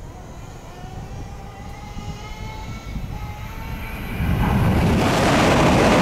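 A Tokaido Shinkansen train approaching at high speed: a whine rising in pitch over a growing rumble, then about four seconds in a sudden loud, steady roar as the train crosses the steel girder bridge overhead on the far track.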